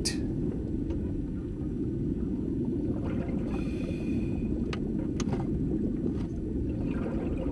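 Underwater sound picked up by a submerged camera: a steady low rumble of moving water, with a few faint clicks scattered through it.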